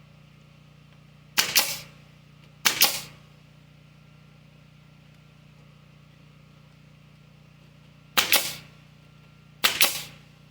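Nailing: four sharp blows at uneven intervals, each a quick double strike, over a steady low hum.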